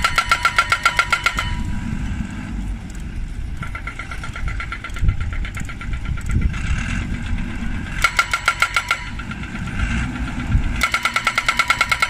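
Tracked hydraulic pile driver hammering a steel post in rapid, even blows, several a second, with the machine's engine running underneath. The hammering stops about a second and a half in, comes back more weakly for a couple of seconds, bursts again past the middle, and starts up again near the end.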